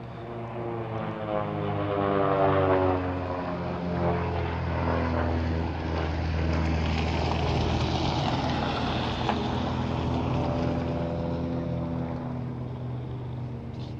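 Aerobatic airplane flying overhead, its engine drone swelling to a peak about two to three seconds in with the pitch falling as it passes, then holding steady as it pulls up into a looping climb.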